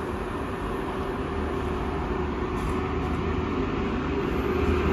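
Freight train running on the rails: a steady rumble of wheels on track with a constant hum, slowly growing louder toward the end.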